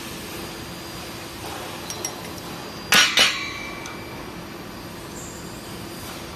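Stud welding gun firing a 1/2-inch shear stud: a sharp double crack about three seconds in, with a short ringing tail, over a steady hum.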